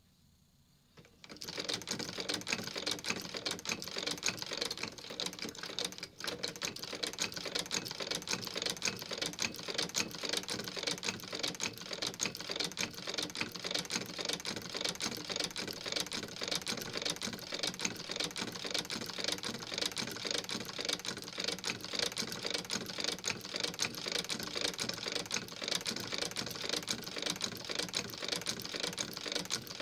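Unrestored Singer 29K-71 patcher sewing machine stitching steadily. Its needle and shuttle make a fast, even clatter that starts about a second in, with a brief dip around six seconds.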